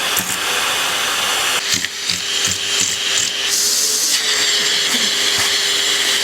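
Vacuum cleaner running steadily, a continuous hiss over a steady hum, with a few short knocks about two seconds in.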